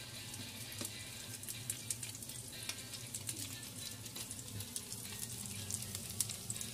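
Meatballs sizzling in hot fat in a frying pan: a steady hiss with frequent small crackles and pops.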